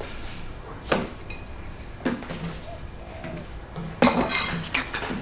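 Crockery and cutlery clinking: a few separate knocks and clinks, one ringing briefly, then a quick cluster of clinks about four seconds in.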